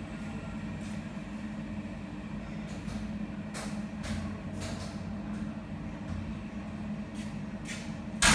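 Steady low machine hum of kitchen equipment, with scattered faint clicks and knocks and one sharp, loud knock at the very end.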